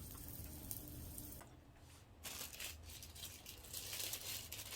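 Crinkling and rustling with small clicks, starting about two seconds in and going on unevenly to the end.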